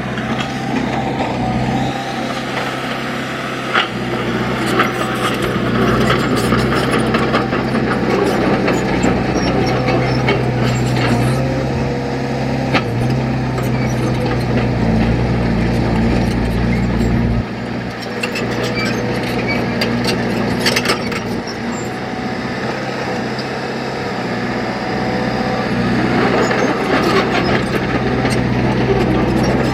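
Diesel engine of heavy earthmoving machinery running steadily, its note shifting with load a few times, with scattered metallic clanks and rattles.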